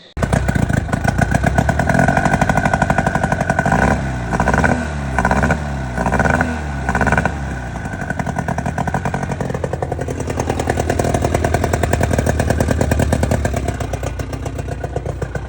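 Evinrude 6 hp two-stroke outboard motor running, revved in several quick blips about four to seven seconds in, then running steadily.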